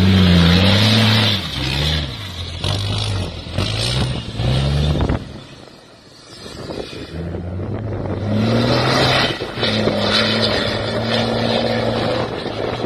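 Tatra Dakar rally truck's diesel engine revving hard as it drives through soft sand. Its pitch rises and drops repeatedly for the first five seconds and fades briefly about six seconds in. It then climbs again and holds steady as the truck pulls away up the dune.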